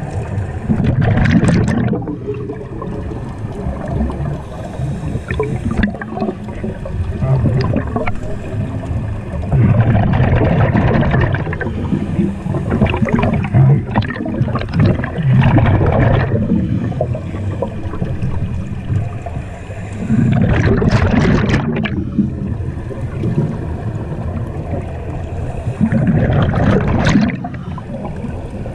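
Scuba diver's exhaled bubbles rushing out of the regulator in surges of a second or two, every few seconds, with a steady low rumble between breaths, heard muffled through an underwater camera housing.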